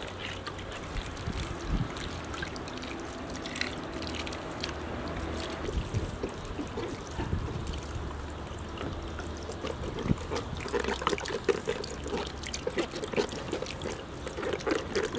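Water poured from a clay jug trickling over tomatoes and peppers into a metal basin as they are rinsed by hand. Scattered light knocks and taps, most likely from handling in the basin, come more often in the second half.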